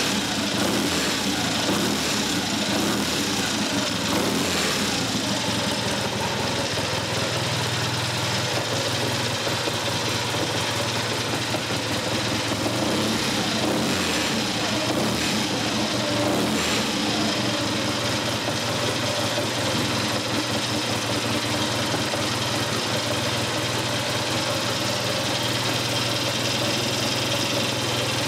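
Triumph Tiger overhead-valve parallel-twin motorcycle engine running at idle, with the revs rising and falling a few times.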